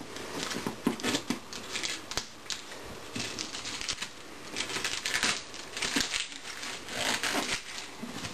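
Hands picking at and peeling packing tape off a cardboard box: irregular scratching, small clicks and tearing of tape and cardboard, busiest in the second half.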